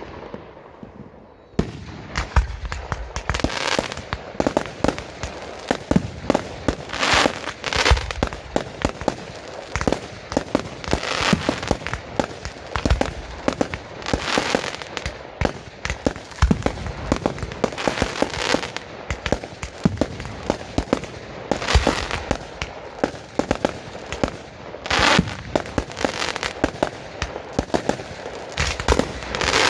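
Mortar-fired fireworks display: shells launching and bursting in rapid succession, many sharp bangs close together with dense crackling, in louder volleys every few seconds after a quieter first second or two.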